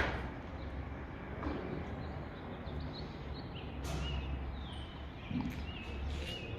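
Birds chirping outdoors, with short high calls repeating every second or so over a steady low rumble.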